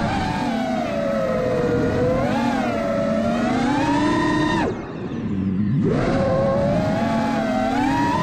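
FPV quadcopter's electric motors and propellers whining in flight, the pitch rising and falling with the throttle. About four and a half seconds in the throttle is chopped and the whine drops away, then it comes back up about a second later.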